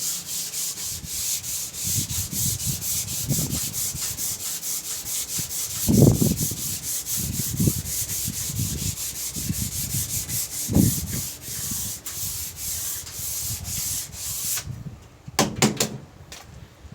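Hand sanding of a wood surface: quick back-and-forth sandpaper strokes, about four a second, with occasional low bumps. The strokes stop suddenly near the end, followed by a few short knocks.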